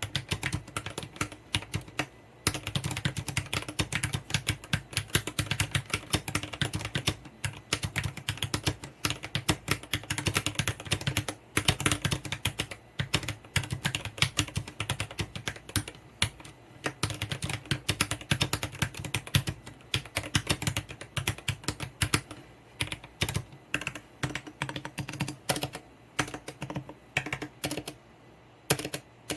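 Fast continuous typing on an Eyooso Z11 60% mechanical keyboard with lubed Gateron Brown switches on a metal plate, plastic-backed case, with a few short pauses. Its stabilizers are unlubed, which the owner says can be heard.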